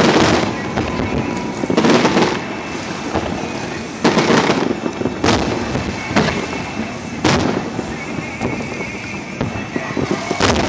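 Aerial firework shells bursting in the sky, a string of loud booms about one to two seconds apart, with a steady background haze between them.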